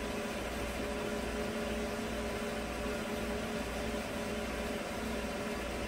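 GM 5.3-litre V8 idling steadily at about 560 rpm, a low uneven rumble under a steady hum.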